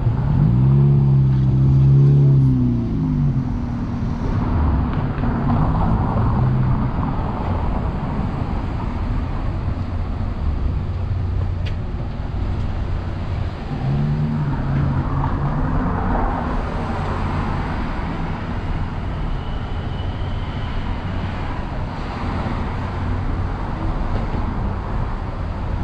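Road traffic: a steady rumble of car engines and tyres, with louder vehicles passing near the start and again about halfway through.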